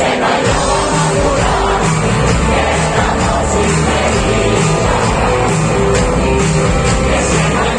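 A live rock band playing a song with a singer, loud and steady.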